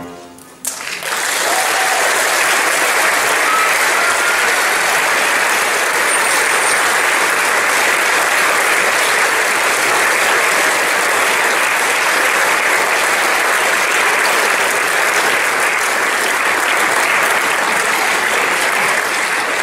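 Audience applause, starting just under a second in as the music ends and holding dense and steady.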